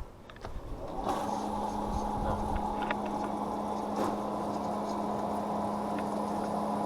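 Evaporative cooler's water pump switched on alone, starting about a second in and then running with a steady hum.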